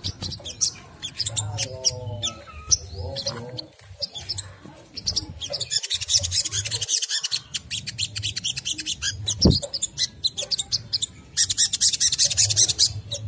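A sunbird chattering in rapid, high, trilling twitters that come in several spells, the fast 'ngriwik kemrecek' chatter used to set other sunbirds singing.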